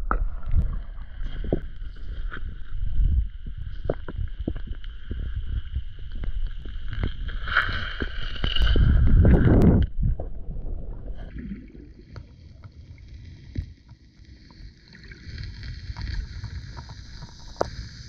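Lake water sloshing and splashing around an action camera held at the surface, with many small knocks against its housing. About nine seconds in there is a loud rush of water as the camera goes under, and after that the sound turns quieter and muffled, with a faint steady hiss underwater.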